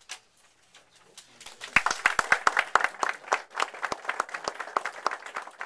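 Small audience applauding at the end of a poetry reading: a few claps about a second in, building quickly into steady applause.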